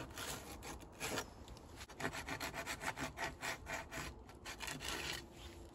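Quick rasping strokes of rope and blade working at a rope lashing on a rough bark-covered pole, many strokes a second with short pauses, easing off near the end.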